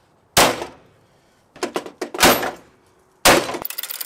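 Hammer blows on a car's bent front-end sheet metal and frame rail, struck while a chain holds it under pulling tension to straighten collision damage. There are three heavy strikes about a second apart, with lighter knocks between them. Near the end the blows cut off suddenly and a fast, even ticking begins.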